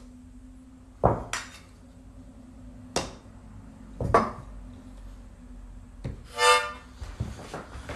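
Sharp taps of a reflex hammer on a knee, a few spread over several seconds. About six and a half seconds in there is one short squeak.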